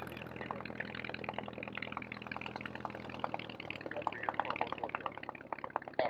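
de Havilland Tiger Moth's Gipsy Major four-cylinder inverted engine running at low power as the biplane taxis. It gives a low, steady hum with a rapid, uneven crackle of ticks and pops on top.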